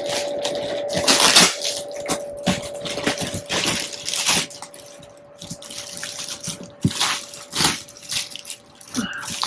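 Retaped packaging being worked open by hand: irregular rustling and crinkling with tugging at tape, in scattered bursts. A faint steady tone sits underneath.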